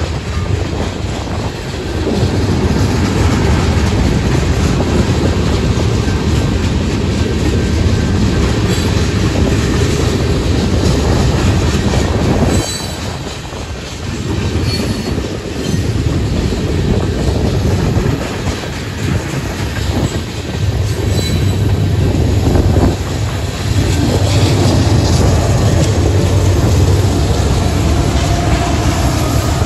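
Freight train cars rolling past at a grade crossing, wheels clacking over the rail joints with some wheel squeal and wind on the microphone. Toward the end the sound grows louder and deeper as a mid-train Norfolk Southern diesel locomotive comes by.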